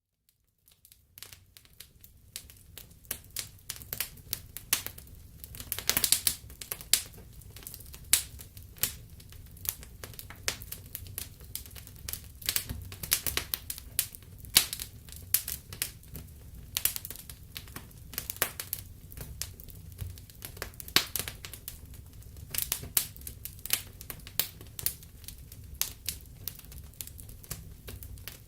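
Wood fire crackling in a fireplace: irregular sharp pops and snaps over a low, steady rumble of the flames. It fades in over the first second or two.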